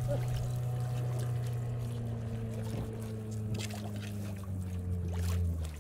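Small engine running steadily as it turns an ice carousel, its pitch sagging slightly near the end. Water churns and sloshes in the open gap around the spinning ice disc.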